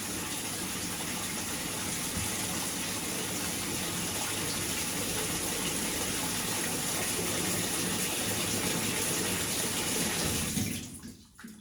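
Amana top-load washing machine filling with water through its inlet valve during the diagnostic test cycle: a steady rush of water that shuts off about eleven seconds in as the tub reaches full.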